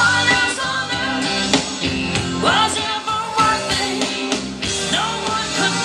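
Music: a song with a singing voice over a full band backing, playing loud.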